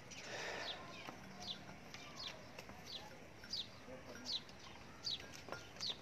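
A small bird chirping over and over: short, high, falling chirps about once a second, heard faintly.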